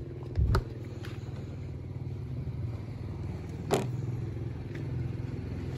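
Vespa PX scooter's small two-stroke engine idling steadily. Two sharp clicks come through it, one about half a second in and one a little past the middle.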